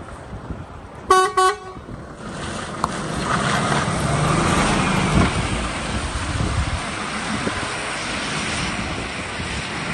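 Two short toots of the horn on a DAF XF106 tractor unit about a second in, then its six-cylinder diesel pulling past, with tyres hissing on wet tarmac. The engine and tyre noise swell as the truck passes and then ease off as it moves away.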